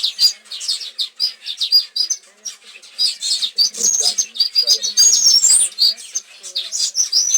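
Sparrows chirping: many short, overlapping chirps that keep up without a break, as from a flock.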